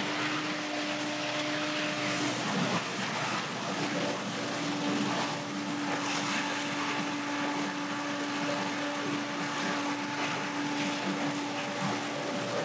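Billy Goat Hurricane X3000 stand-on leaf blower running at work, its Vanguard V-Twin engine and fan giving a steady whine over a rush of air. The whine drops out briefly about two seconds in.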